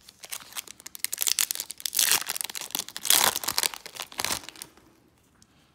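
Foil Yu-Gi-Oh! booster pack wrapper crinkling and being torn open by hand: a dense crackle of small snaps, with two louder rips about two and three seconds in.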